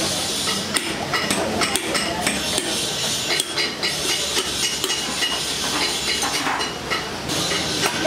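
Light metallic clinks and taps of small hand tools against small ignition parts, irregular and several a second, over steady open-air background noise.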